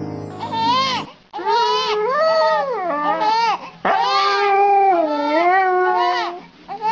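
An infant crying with a husky whining along beside it, in long wavering bouts that rise and fall in pitch, starting about a second in after the music cuts off.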